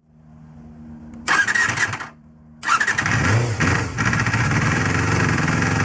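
Honda MC14E 250 cc inline-four motorcycle engine being started: a first burst about a second in dies out, then it fires again and catches near three seconds and keeps running steadily.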